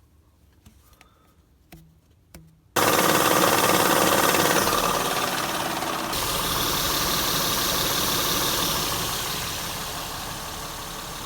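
A couple of faint clicks, then about three seconds in the Acura MDX's V6 engine is suddenly heard running, loud at first, then easing to a steadier, gradually quieter level.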